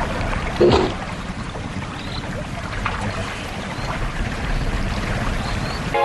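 Brown bear (grizzly) cubs nursing, making a steady, pulsing, motor-like hum. A short, louder call sweeps downward about half a second in.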